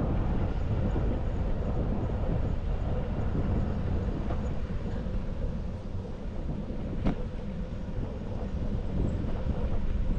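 Bicycle riding along a paved path: a steady low rumble of the tyres and frame on the asphalt, easing a little in the middle, with one sharp click about seven seconds in.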